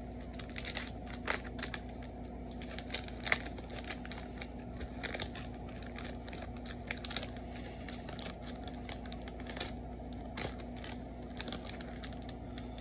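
Basketball card wax-pack wrappers crinkling and tearing while the cards are handled: a run of irregular small crackles and taps over a steady low hum.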